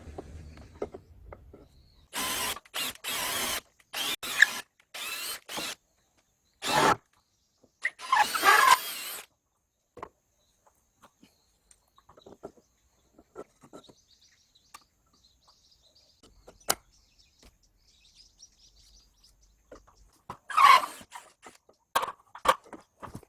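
Handheld power drill run in short trigger bursts: a quick series of brief runs, a longer run about eight seconds in, then two more bursts near the end.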